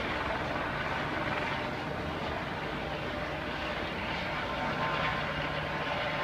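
A steady engine drone with an even rushing noise, holding at one level throughout.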